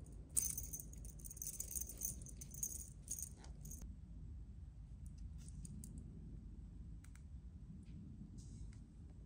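A feather wand cat toy jingling and rattling as it is shaken, for about three seconds, then a few faint scattered rattles.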